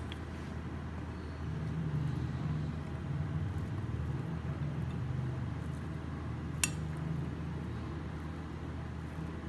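A small spoon mixing a macaroni salad in a glass bowl, with one sharp clink of spoon on glass about two-thirds of the way through, over a steady low hum.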